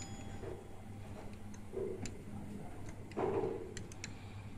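Scattered light clicks at an uneven pace, with a duller knock about three seconds in, over a steady low hum.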